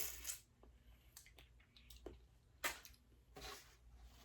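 Faint close-up eating sounds of a seafood boil: a few short bursts of wet chewing and smacking with small clicks in between.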